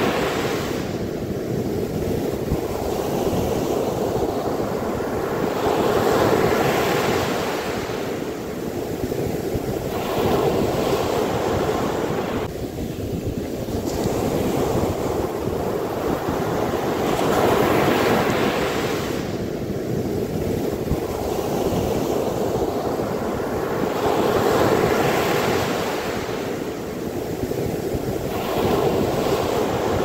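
Sea waves breaking and washing up over a sandy beach, the surf swelling and easing in slow surges about every five to six seconds.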